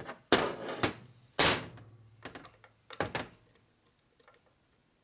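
A handful of sharp metal clunks and knocks as a Harley-Davidson WLA transmission is handled and turned over on a workbench. The loudest clunk comes about one and a half seconds in, and the clunks die away after about three and a half seconds.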